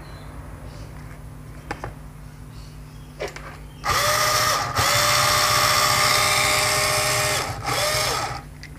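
Cordless screwdriver motor and gearbox whining as it spins a homemade rope drum under electronic speed control. It starts about four seconds in and runs in three stretches, the whine rising as it speeds up and falling as it slows, then stops near the end. A couple of small clicks come before it starts.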